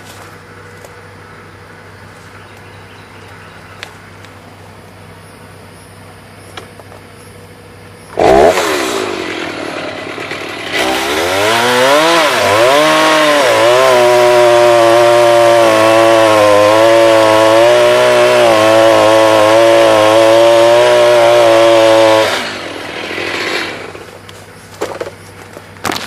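Chainsaw started with a sharp rev that falls away, then run at full throttle, its pitch climbing and then holding steady for several seconds before it cuts off. A low steady hum sits underneath, alone at first.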